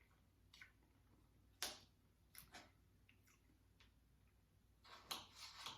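Soft eating sounds: scattered short mouth clicks and smacks from chewing syrupy pancakes, with a closer run of them near the end.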